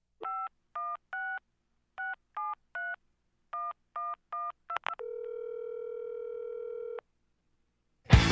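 Touch-tone telephone keypad dialing a number: nine short two-tone beeps in three quick groups of three, then a steady ringback tone on the line for about two seconds. Loud rock music with guitar starts abruptly just before the end.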